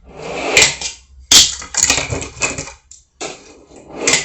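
Fingerboard wheels rolling on a ramp, with the board clacking down hard: a rising roll ends in a clack under a second in, a loud clack and rattling follow, and another roll builds into a clack near the end.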